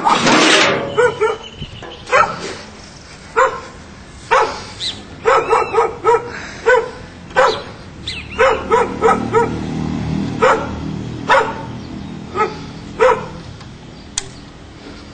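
A dog barking repeatedly, single barks and quick runs of two or three, stopping shortly before the end. A loud rustling noise comes at the very start.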